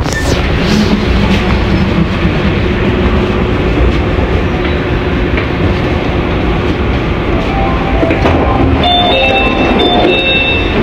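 Running noise inside a commuter train car: a steady rumble of the moving train. Near the end, several high tones come and go as the train comes into a station.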